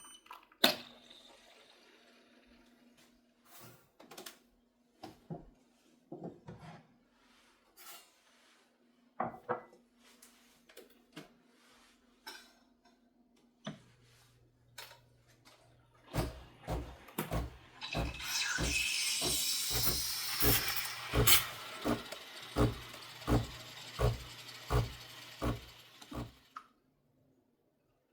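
Household handling noises: scattered knocks and clicks over a faint hum, then a steady run of knocks about one and a half a second, with a hiss partway through.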